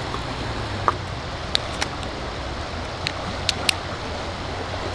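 A few small, sharp clicks from a Contax G1 35 mm film camera being handled as its back is opened and a roll of film is loaded, over a steady background hiss.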